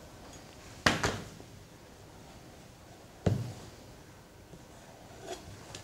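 Two sharp knocks of metal kitchen tools on a plastic cutting board, about a second in and again about two and a half seconds later, while a sponge biscuit is cut to size with a pastry ring and knife.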